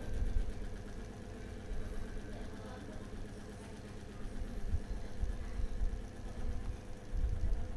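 A steady low mechanical hum over an uneven low rumble.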